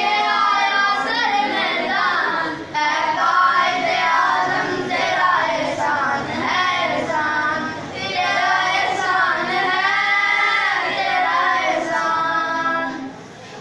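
A group of young boys singing a song together in chorus, their voices held on long, bending notes.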